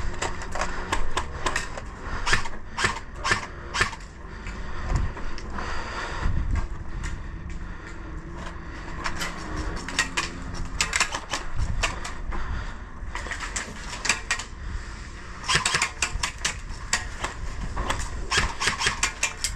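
Airsoft guns firing: sharp cracks in quick runs and single shots, with the densest runs about halfway through and again about three-quarters in, over low knocks and rustling.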